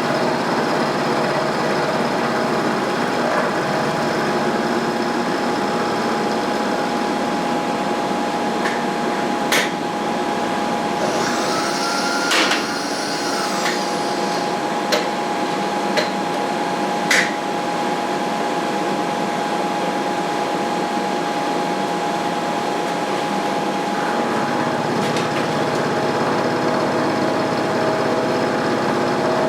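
Milling machine running with its end mill taking a light 40-thou conventional-milling pass: a steady whirr with a constant tone, with a few sharp clicks near the middle.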